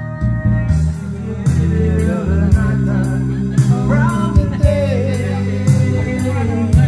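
Backing music with a bass line and a regular drum beat, with a man singing a melody into a microphone over it from about a second and a half in.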